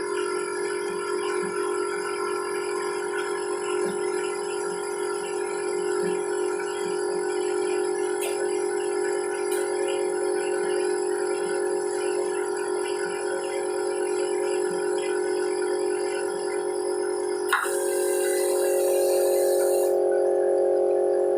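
Blow-moulding machine for capsule-shaped floats running with a steady multi-tone hum. Near the end a sharp click is followed by about two seconds of high hiss that cuts off suddenly, after which the hum takes on a higher tone.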